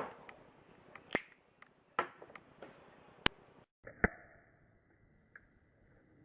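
Zippo lighter's hinged metal lid snapping open and clicking shut during a flip trick: about six sharp, separate clicks, roughly a second apart.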